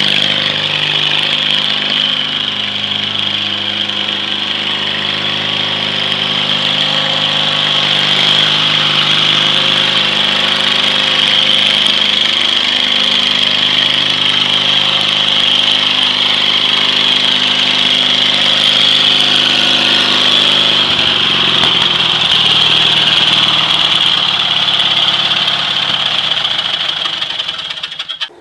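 Black 1993 Craftsman lawn tractor's 18 hp Briggs & Stratton engine running steadily under load as it drives, with a steady high-pitched whine over the engine note; the engine's pitch drops a little about twenty seconds in.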